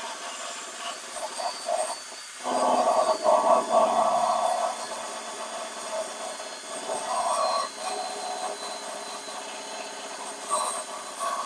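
Belt sander grinding down the remains of drilled-out spot welds on steel body panel, its whine swelling and easing as it is pressed to the metal, with a brief break about two seconds in.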